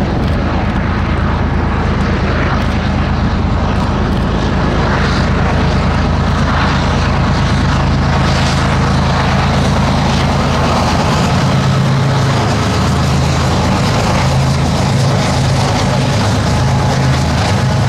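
Three Union Pacific diesel-electric locomotives hauling a coal train pass by, their engines making a loud, steady low drone, followed by the rumble of the coal hopper cars rolling along the rails.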